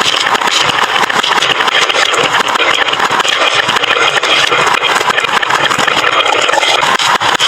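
Many marbles rolling and clacking down a wooden marble-run slope, a continuous dense rattle of rapid clicks.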